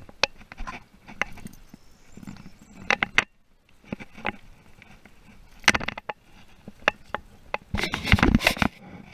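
Scattered clicks, taps and rustling from handling a freshly landed small black bass on the line in the grass, with a denser burst of scuffling near the end as the fish is grabbed by hand.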